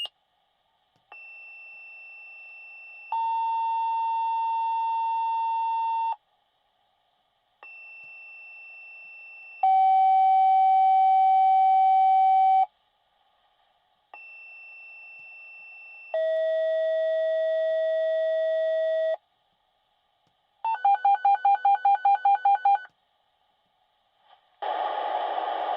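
Fire department radio dispatch tone-out setting off the volunteer companies' pagers. Three two-tone pages, each a faint high tone for about two seconds and then a louder, lower tone for about three, the lower tone dropping a little with each page. Then a short run of rapid beeping, about six beeps a second, just before the dispatcher's voice comes in.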